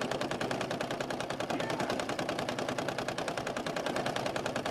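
Embroidery machine stitching an appliqué: a rapid, even clatter of needle strokes.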